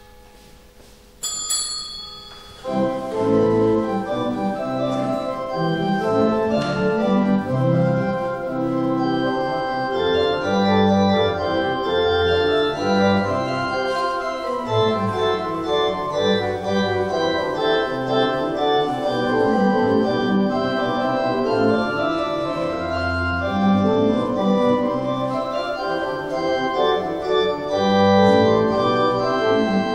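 A small bell rings once about a second in. Then a church organ starts, playing a hymn in sustained chords.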